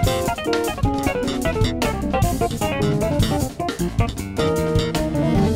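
Background music: a band with guitar, bass and drums playing a steady beat.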